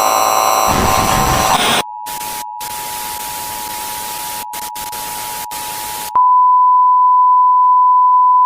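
Simulated broadcast interference: loud static hiss mixed with steady electronic tones. About two seconds in it drops to a quieter hiss under a steady two-note tone with brief cut-outs, and about six seconds in it switches to a single loud, steady, pure test-tone beep.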